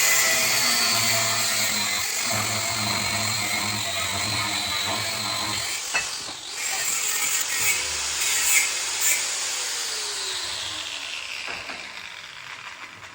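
A power tool running with a loud, hissing whir, cut briefly about halfway through, then winding down with a falling pitch near the end.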